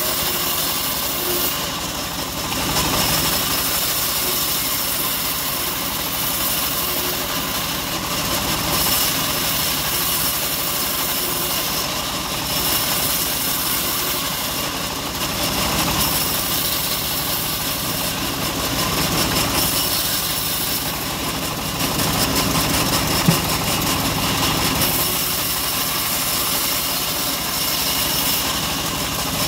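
Homemade bandsaw mill running steadily while teak boards are fed by hand through its band blade. The cutting noise grows louder in short spells, several times. There is one sharp click about two-thirds of the way through.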